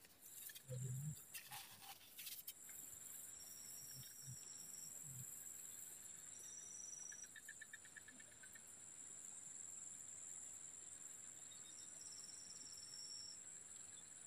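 Faint insects chirring: a steady high-pitched tone throughout, with shorter high trills that come and go and a brief rapid pulsing about seven seconds in. A few soft low knocks sound in the first five seconds.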